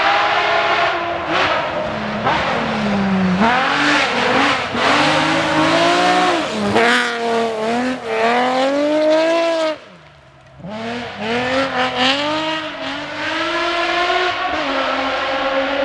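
BMW rally car engine revving hard on a gravel stage, its pitch climbing and dropping again and again through gear changes. About ten seconds in it cuts back sharply for a moment as the driver lifts off, then pulls up through the revs again.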